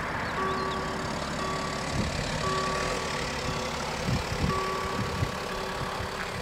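Level-crossing warning bells sounding a steady electronic ringing tone in on-and-off stretches as the crossing activates. A car driving over the crossing adds a few low thumps from about two seconds in, most around four to five seconds in.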